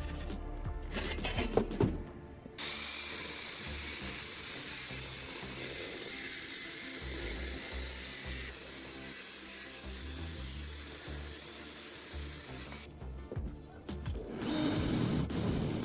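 A metalworking power tool running with a steady hiss, starting about two and a half seconds in and stopping about thirteen seconds in, over background music.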